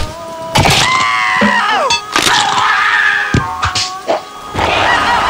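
Cartoon slapstick sound effects: several sharp cracks and thuds as a frog is knocked flat, and a cartoon cry that wavers and slides down in pitch, over a steady hiss of rain.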